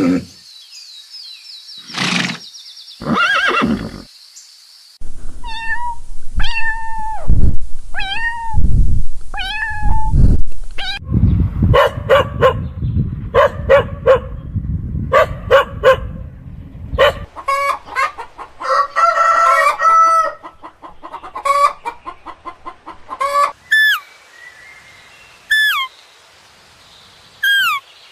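A string of animal calls from several different animals in turn, with a clean break between each clip. It ends with a series of short, sharply falling bird calls.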